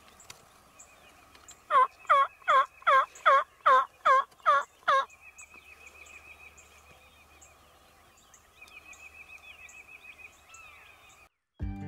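Turkey yelps: a run of about nine evenly spaced calls, each sliding down in pitch, lasting about three seconds. A songbird trills faintly afterwards.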